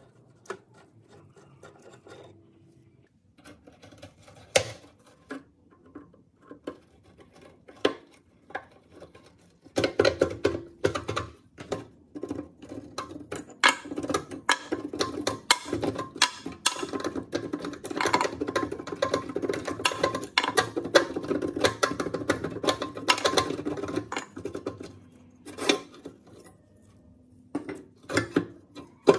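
Rusty steel levers and parts of a book binding machine being worked loose and handled: scattered metal clicks at first, then dense clinking and rattling from about ten seconds in, easing off near the end.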